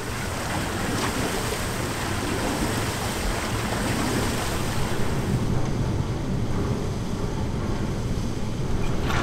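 Steady rushing of water at the hydropower-driven water wheel that hauls the boat carriages over the inclined plane. The upper hiss thins out about five and a half seconds in.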